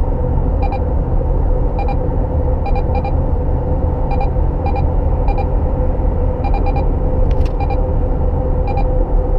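Neoline X-COP 4300 radar detector giving short double beeps about once a second: its alert for a Strelka ST speed radar detected about 900 m ahead. The beeps sound over the steady road and engine rumble inside the car.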